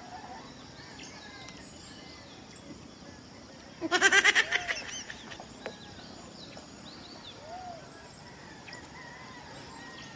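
A goat bleats once, a wavering call of about a second, about four seconds in, over faint scattered bird chirps.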